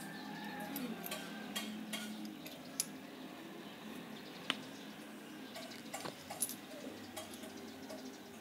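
Small clicks and light taps of spinning-reel parts being handled as the drag washers are taken out of the spool of a Fugu Eiji reel, with two sharper clicks about three and four and a half seconds in. A faint steady hum runs underneath.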